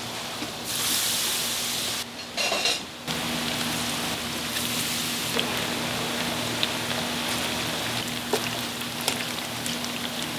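Battered Korean fritters (twigim) frying in a large vat of hot oil: a steady, rain-like sizzling hiss, with a few light clicks over a faint steady hum.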